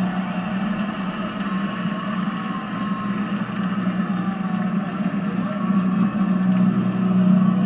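Ballpark crowd cheering and applauding in a steady roar that grows louder near the end.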